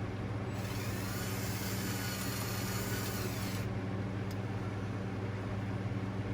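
Steady low engine-like hum. A rushing hiss comes in about half a second in and stops about three and a half seconds in.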